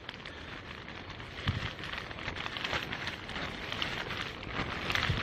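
Light rain pattering close to the microphone as an irregular crackle, with a few low thumps of footsteps on wet stone steps, one about a second and a half in and more near the end.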